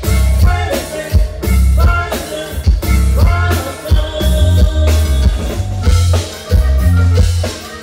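Live norteño band playing loudly: accordion, electric bass and drum kit, with a heavy bass line under a steady drum beat.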